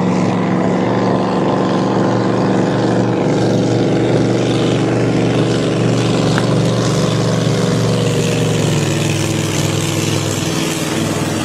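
A racing powerboat's engine running at a steady, even pitch with a low rumble.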